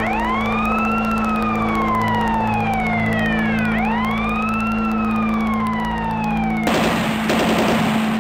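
A siren wailing, each cycle rising quickly and falling slowly, twice about four seconds apart, over a steady low drone and an even pulsing beat. Near the end, a loud burst of noise cuts in over it.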